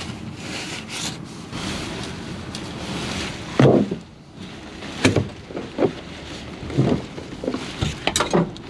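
Tent fabric rustling and tent poles being handled as a tent is put up inside a van. About three and a half seconds in, the rustling gives way to a string of knocks and thumps, the first the loudest.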